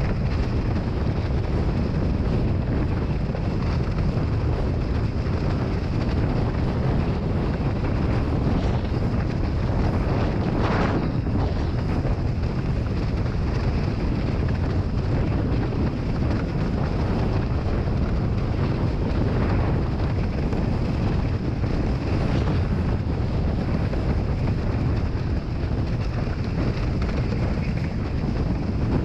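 Steady wind noise on an action camera's microphone aboard a windsurf board planing at about 50 km/h, with the rush of water past the board under it. A brief louder rush comes about eleven seconds in.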